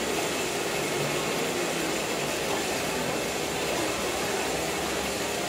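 Indoor market ambience: a steady rushing noise with faint voices of people talking underneath.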